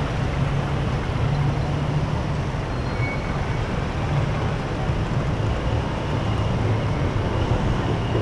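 Steady rumble of dense, slow-moving city road traffic: cars, taxis, buses and motorbikes running in a jam on a multi-lane road.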